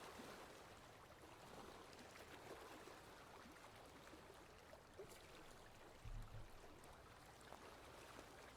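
Faint water lapping, with small splashes and trickles over a steady wash. About six seconds in there is a brief low rumble, the loudest moment.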